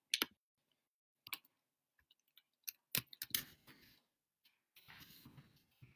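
Faint, scattered keystroke clicks of typing, a few keys at a time with pauses between, clustered around the middle and near the end.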